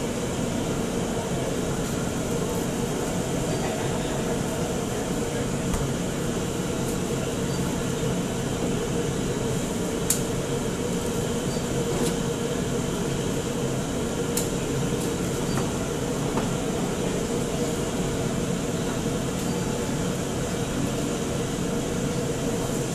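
Commercial kitchen extraction hood and range burners running, a steady mechanical noise with a constant hum, with a couple of sharp clicks from about ten seconds in.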